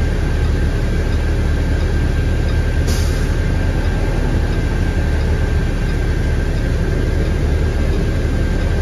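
2017 IC CE school bus engine idling, heard from inside the cabin: a steady low rumble with a faint steady high whine, and a brief hiss about three seconds in.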